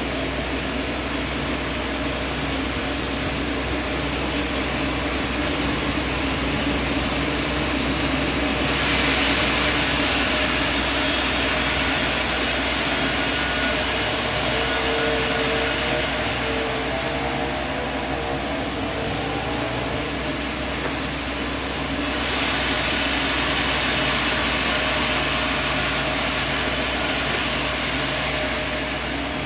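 Sawmill band saw running steadily, with two louder stretches of the blade cutting through timber: one starting about nine seconds in and lasting some seven seconds, and another starting about twenty-two seconds in and lasting some six seconds.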